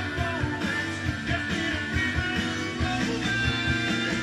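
Music with a steady beat playing from a vinyl record on a Technics SL-23 belt-drive turntable.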